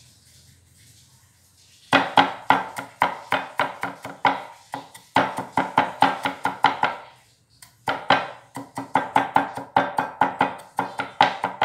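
A knife chopping quickly on a wooden chopping block, about five strokes a second, each stroke ringing. It starts about two seconds in, stops briefly about seven seconds in, then starts again.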